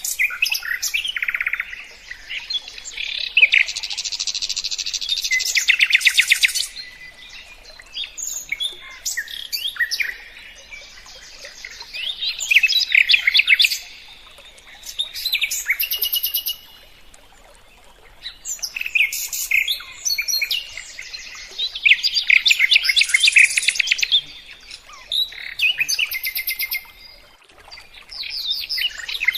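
A songbird singing loud, rapid phrases of chattering trills and repeated notes, each phrase a few seconds long, with short pauses between them.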